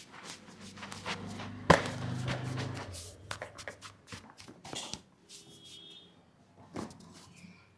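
Hands tapping and slapping on a head during an Indian head massage (champi): a run of quick light taps, one loud sharp hit about a second and a half in, then sparser, quieter taps.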